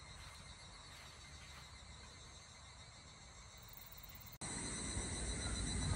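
Steady high-pitched chirring of insects in summer grass and trees, faint at first. About four seconds in it cuts abruptly to a louder take of the same chorus with a low rumble underneath.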